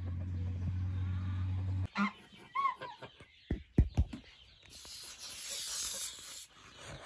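Domestic geese honking a few short times about two seconds in, followed by a couple of dull thumps and then a long hiss from a goose. Before the honks, a steady low hum cuts off suddenly.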